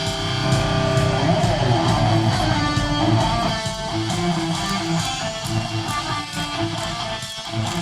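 Hardcore punk band playing live: strummed electric guitars and bass over drums with regular cymbal hits, without vocals.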